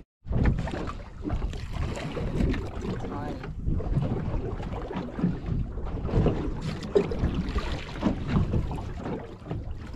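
Wind buffeting the microphone over the steady wash of water around a small boat on choppy open water.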